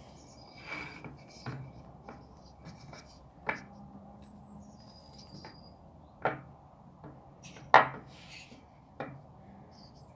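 A Beru ZSE 003 ignition coil pack, plastic with a finned aluminium top, handled and turned over on a tabletop: several sharp knocks as it is set down and picked up, the loudest late on, with light scraping and rubbing between them.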